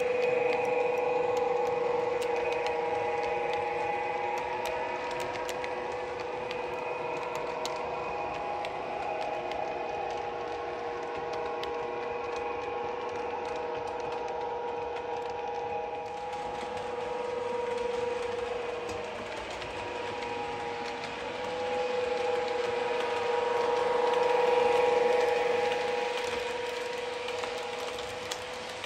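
OO gauge model train, a Class 92 locomotive hauling Mk5 sleeper coaches, running on the track with a steady whine and light clicking. It grows louder as it comes close, loudest about 25 seconds in, then fades.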